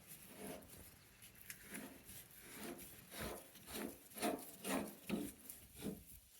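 Faint, short rasping strokes, about two a second, from a wrench working a hydraulic hose fitting loose on a tractor loader's lift cylinder.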